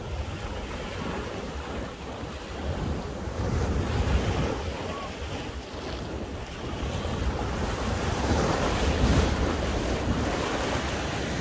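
Sea surf washing in, with wind buffeting the microphone; the wash swells twice.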